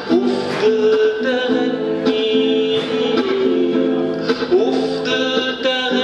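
A man singing an Egyptian Arabic song to his own acoustic guitar accompaniment, with long held notes that slide between pitches over the plucked strings.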